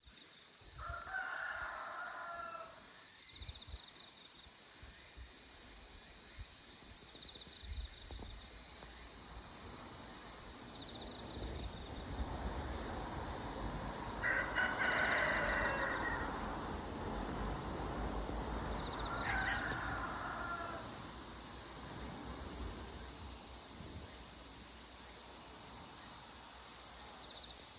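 A rooster crowing three times, each crow lasting a second or two, about a second in, near the middle and a few seconds later, over a steady high chorus of insects.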